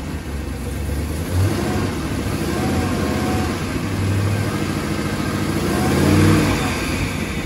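Supercharged LSA V8 with a BTR Stage 2 PDS cam, swapped into a Formula 242LS speed boat, running with a choppy rhythm, rising in revs about six seconds in and then dropping back.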